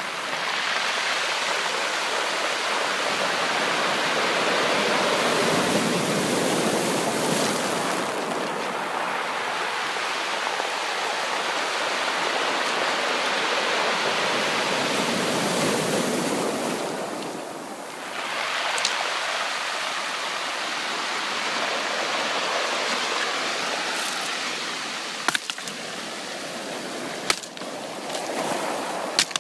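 Ocean surf: waves washing in as a continuous rushing noise that swells and eases, dropping briefly about eighteen seconds in before building again. A few sharp clicks come near the end.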